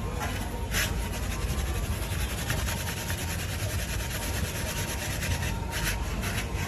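Rapid, rhythmic rasping and scraping strokes over a steady low rumble, with a louder single scrape about a second in and another near the end.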